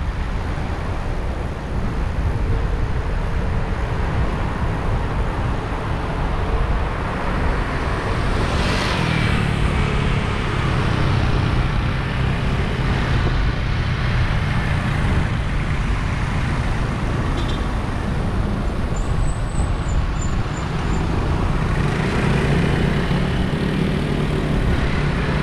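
Road traffic heard from a bicycle in city streets: cars and trucks running past over a steady low rumble, with one vehicle passing close about nine seconds in and a few short high chirps a little later.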